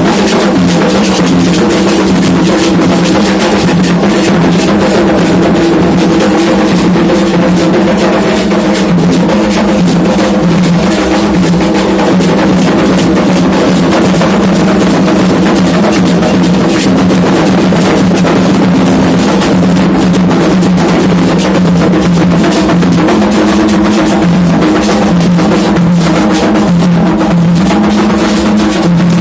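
Candomblé atabaque drums playing dense, continuous ceremonial rhythms, loud and unbroken.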